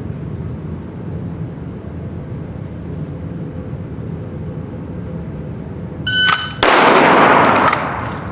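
A shot timer beeps, and just over half a second later a pistol drawn from the holster fires a single shot. The report is loud and rings out through the indoor range. Before the beep there is only a steady low hum.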